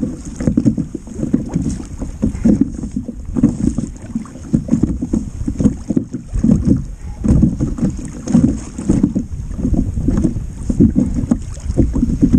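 Wind buffeting the microphone, with small waves slapping against a kayak's hull in irregular low thumps.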